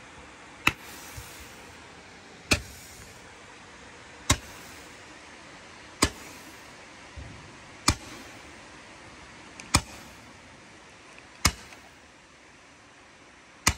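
Firework shots going off at a steady pace, about one every two seconds, eight sharp cracks in all, some with a short echoing tail, over a steady background hiss.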